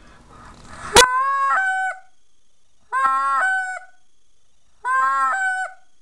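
Short-reed acrylic goose call with a tone chamber blown in three honks about two seconds apart, each jumping in pitch partway through as the reed breaks over. Blown clear, the way young geese sound. A sharp click comes just before the first honk.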